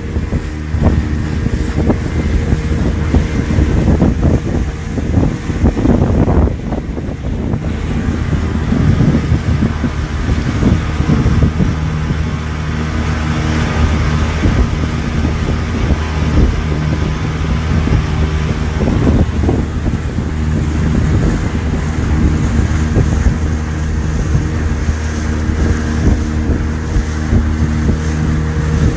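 Speedboat engine running steadily at speed, with wind buffeting the microphone and water rushing past the hull.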